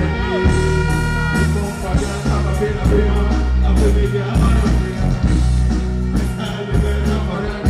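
Live dancehall music over a stage sound system, with a heavy repeating bass line and a deejay's voice on the microphone over the beat.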